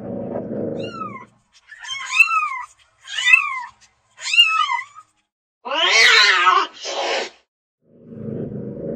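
Domestic cat meowing: about four short, high meows in a row, each rising and then falling in pitch. Then comes one louder, harsher and lower meow, followed by a brief one. A low rumbling noise comes before the meows and returns near the end.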